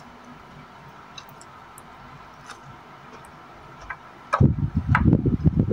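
A person eating with their fingers: faint scattered clicks of mouth and fingers. About four seconds in, a sudden loud, rough rumbling noise starts close to the microphone and carries on.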